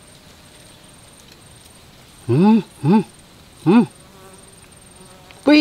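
A flying insect buzzes loudly past the microphone three times in quick succession, its pitch rising and falling with each pass. A faint, high, pulsing insect trill carries on behind it throughout.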